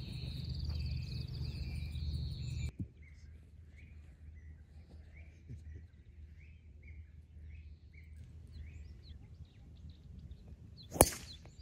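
A driver striking a golf ball off the tee: a single sharp crack about eleven seconds in, by far the loudest sound. Before it, birds chirp faintly in a run of short calls.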